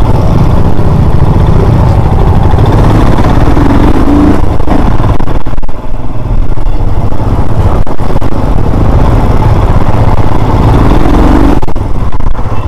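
Royal Enfield Himalayan motorcycle running while being ridden: a loud, steady low rumble of engine and wind noise that carries on without a break.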